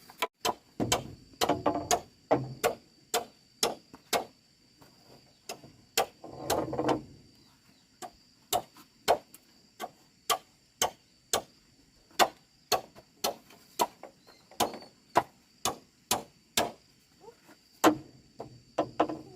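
Hammer strikes on wood, about two a second with short pauses, as the coop is built. A steady high buzz of insects runs underneath.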